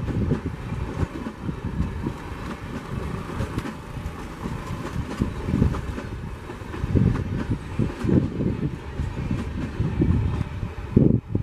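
A diesel-hauled express passenger train running past at speed: a continuous low rumble of the train on the track with irregular low thuds, and no horn.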